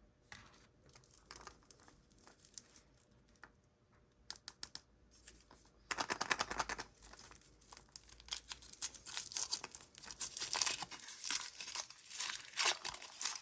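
Crinkling and tearing of a surprise egg's wrapper being handled and torn open by hand. Scattered light crackles at first, then dense, continuous crinkling from about halfway through.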